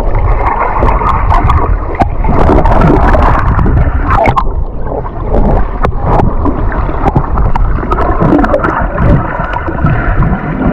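Water heard underwater: a muffled, continuous rushing and gurgling, broken by scattered sharp clicks and knocks.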